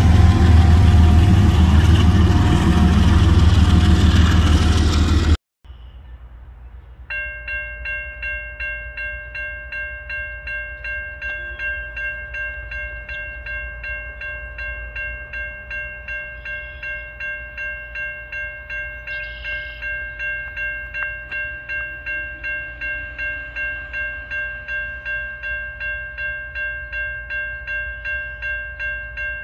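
A loud train sound effect for the first five seconds, cut off suddenly. After a brief lull, a railroad grade-crossing bell rings in a steady pulse of about two strikes a second as the crossing gates come down, warning of an approaching train.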